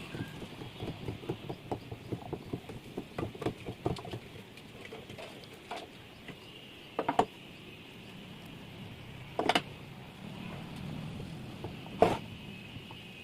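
A run of light clicks and taps, then three louder sharp knocks about two and a half seconds apart, from hands and tools working on a water pump.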